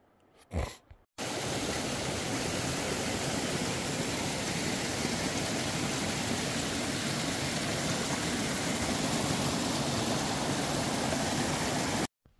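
A small mountain stream splashing over rocks in a little cascade: a steady rush of water that starts abruptly about a second in and cuts off abruptly near the end.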